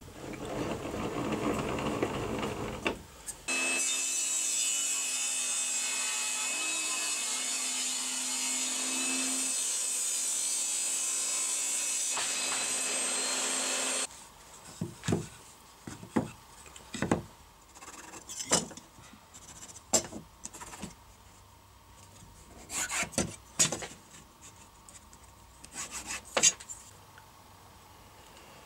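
Table saw running and cutting a board, a steady whine with a hiss that stops abruptly about halfway through. After it come short scratching strokes of a steel scriber scoring lines into an MDF board.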